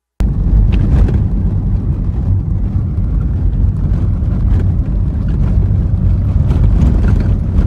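Car driving along a rough dirt road, heard from inside: a loud, steady low rumble of engine and tyres with scattered knocks from bumps, starting abruptly just after the opening.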